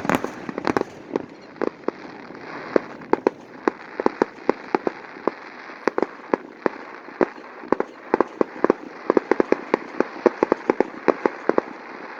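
Aerial fireworks going off in rapid sharp cracks and pops, several a second, over a steady crackling hiss.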